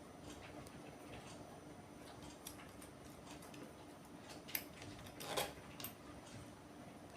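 A few faint, scattered clicks and taps of hands and a screwdriver working on a small plastic-and-metal limit switch, unscrewing its spring-loaded head. The loudest clicks come just past halfway.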